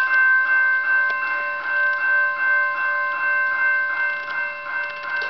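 General Signal EB360 electronic railroad crossing bell, its replacement speaker taped over to quiet it, sounding a rapid series of ringing dings about two a second as the crossing signal activates. It dies away right at the end.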